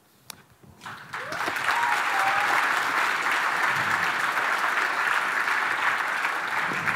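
Large seated audience applauding, a dense steady clapping that starts about a second in after a moment of near silence and eases off near the end.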